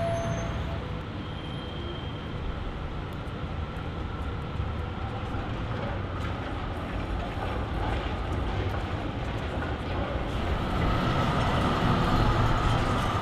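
Articulated B2-class tram approaching and passing close, its motors and steel wheels running along the rails over steady city traffic noise. It grows louder near the end, with a faint steady tone as it goes by.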